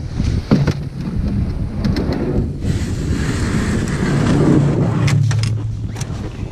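Wind rumbling on the microphone, with a cloth coat brushing directly over the microphone in the middle as a dense rustle. A few sharp knocks of gear being handled in a plastic sled follow near the end.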